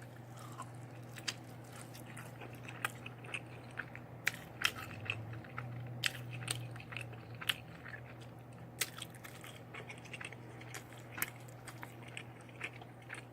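A person chewing and biting food close to the microphone, with many small irregular clicks and smacks. A steady low hum runs underneath.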